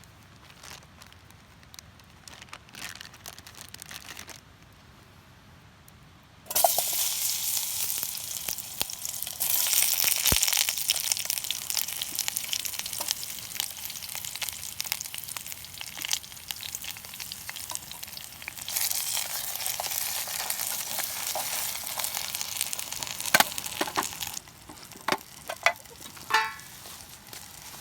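Food sizzling in a hot pan, starting suddenly about six seconds in, swelling louder twice and dying down near the end, followed by a few sharp clicks.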